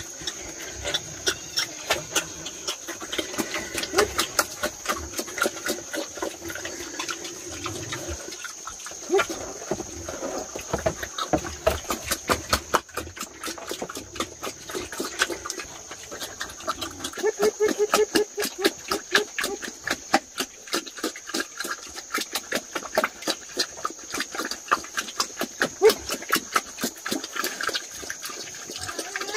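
Wild boars grunting, with a dense run of sharp clicks and smacks throughout like pigs chewing.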